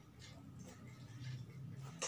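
Faint sounds of a man drinking water from a glass mug, with a low hum through the middle. A sharp knock at the very end as the glass is set down on the table.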